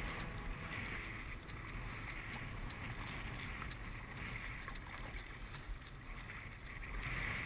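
Wind noise on the microphone over water sloshing around a sit-on-top kayak as it is paddled through choppy sea, with soft paddle splashes and drips.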